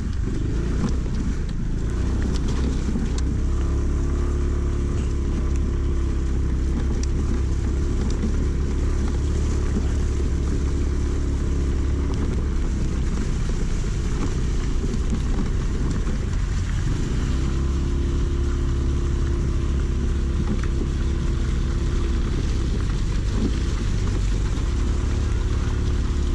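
Aprilia Storm scooter's engine running at a steady pace while riding over a rough, muddy road, with a heavy low rumble of wind on the microphone.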